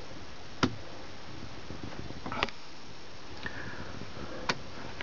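Quiet room hiss inside a small boat cabin, broken by three faint sharp clicks: one about half a second in, one midway and one near the end.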